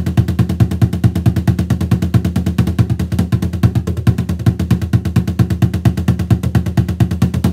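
Improvised bucket bass drum played with drumsticks in a fast, even roll of low, booming strokes, about ten a second, cutting off suddenly at the end.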